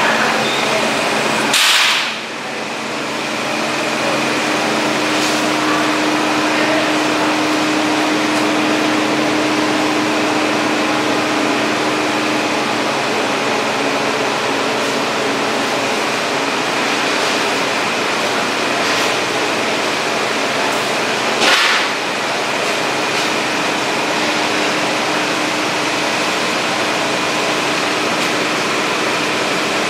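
Steady hum and hiss of cooling machinery, from drink fridges and an ice cream display freezer, with faint steady tones in it. Two brief sharp noises come about two seconds in and again about 21 seconds in.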